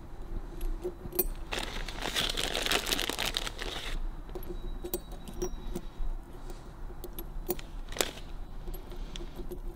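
Small steel needle rollers clicking and clinking as they are taken from a plastic bag and set into the slots of a Harley-Davidson WLA star-hub wheel bearing sleeve, to trial-fit oversized rollers. The plastic bag rustles for a couple of seconds about a second and a half in.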